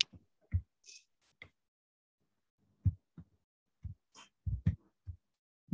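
A handful of short, soft low thumps at irregular intervals, a few with a faint click or hiss on top.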